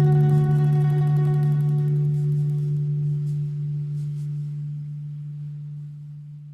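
Background music ending: a final low chord rings on and slowly fades away.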